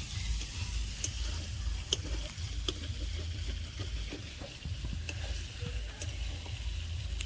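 Chicken pieces sizzling as they are fried with masala in a pan and stirred, the ladle clicking against the pan several times.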